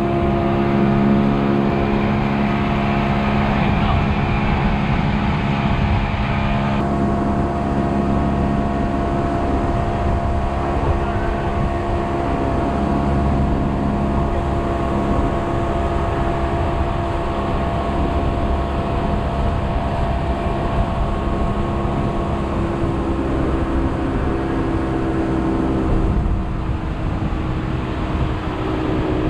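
Boat motor running at a steady speed, a constant droning hum. Its tone changes abruptly about seven seconds in and again near the end.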